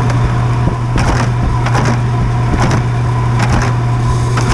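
Heat pump running with a steady low hum and a fainter steady whine above it, while several short, irregular crunching noises come and go.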